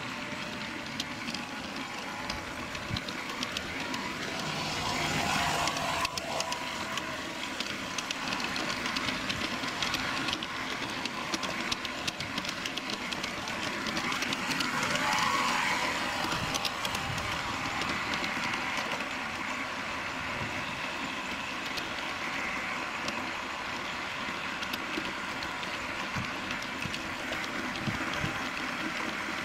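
Small live-steam garden-railway locomotive running, heard from on board: a steady steam hiss with fast clicking from the engine and wheels on the track. It grows louder for a couple of seconds while passing through a tunnel about halfway through.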